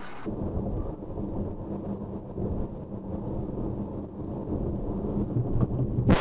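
Car interior heard through a dashcam: steady low engine and road rumble while driving, ending in one sharp loud bang of a collision with the car ahead.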